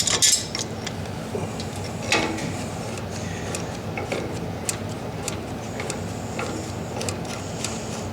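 Scattered metallic clicks and clinks of hand tools and brass fittings being worked on a water heater's gas control valve, with a loud cluster at the start and another about two seconds in, over a steady low hum.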